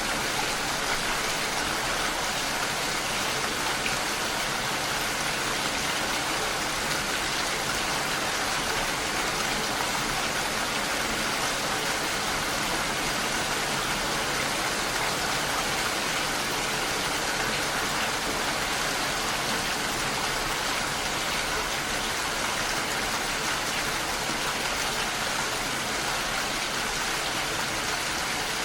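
Steady rain falling, an even, unchanging hiss.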